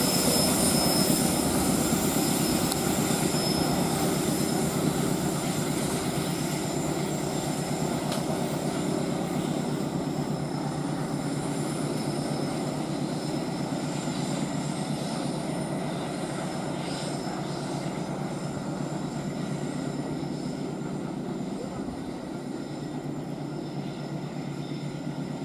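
A freight train hauled by a diesel locomotive running by: a steady engine and rolling rumble that slowly grows fainter.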